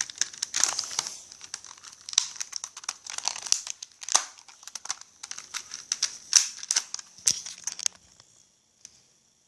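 Crinkly wrapping material being handled and crumpled, a dense run of irregular sharp crackles that stops about eight seconds in.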